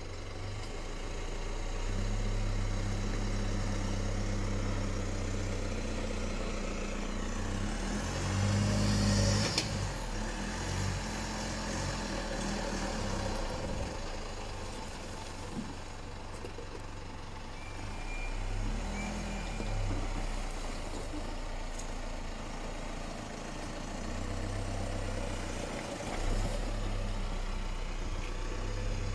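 Dual-cab 4x4 ute's engine pulling at low revs as it crawls through deep mud ruts. The revs rise to the loudest point about nine seconds in, then swell again briefly twice later on.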